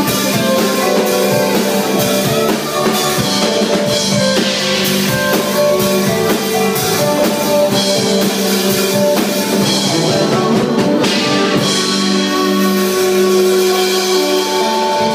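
Rock-style music with a drum kit and electric guitar playing. About three-quarters of the way through the drums drop out, leaving held guitar notes.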